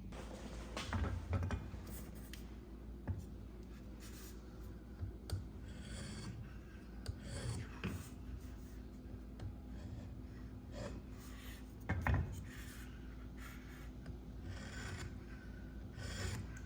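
Irregular rubbing and scraping strokes with a few light knocks, the loudest about a second in and again about twelve seconds in.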